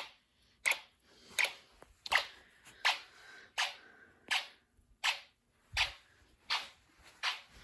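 Snap Circuits fire alarm circuit clicking steadily, about three sharp clicks every two seconds.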